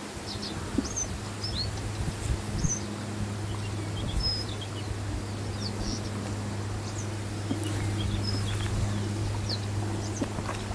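Small birds chirping in short scattered calls from the reeds, over a steady low hum.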